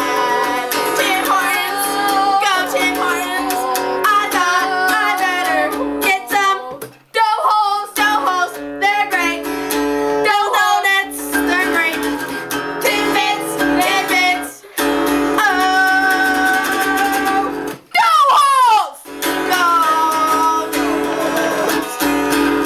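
Acoustic guitar strummed steadily under girls singing along, with short breaks in the music about seven and eighteen seconds in.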